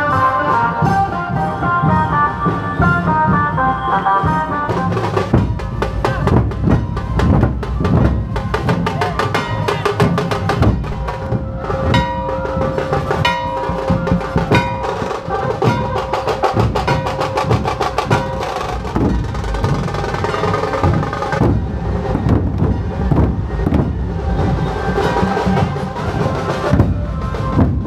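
A passage of melodic music gives way about five seconds in to a troupe of dhol drums played with sticks, many drums beating together in a dense, driving rhythm.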